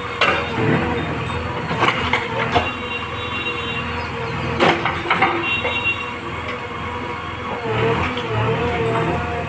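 JCB backhoe loader's diesel engine running, with a steady hydraulic whine that rises in pitch about eight seconds in, and a few sharp metallic clanks scattered through.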